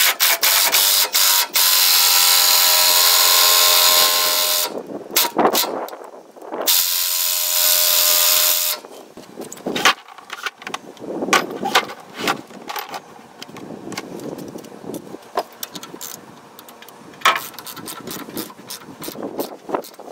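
A power tool driving the centre screw of a gear puller to pull the cam timing gear off a Ford 4.9-litre inline-six, running with a whine in two long bursts, the first about four and a half seconds and the second about two. After that come scattered sharp clicks and knocks of tools against the puller.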